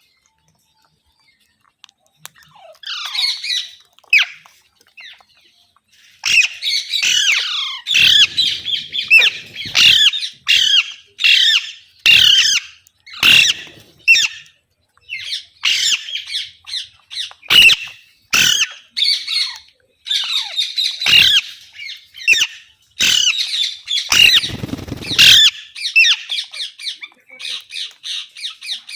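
Rose-ringed (Indian ringneck) parakeet squawking: a few calls about three seconds in, then a long, almost unbroken run of loud, harsh squawks, ending in a quick series of short repeated calls.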